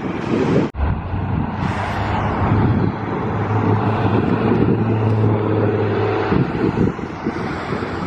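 Road traffic with a motor vehicle's engine running, a steady low hum that ends about six seconds in, over a rushing background of passing traffic.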